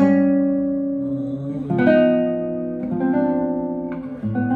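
Nylon-string classical guitar playing a slow run of about four chords, each struck and left to ring before the next. The chords are shell voicings from a move between F minor 6 and A-flat minor 6 over E dominant 7.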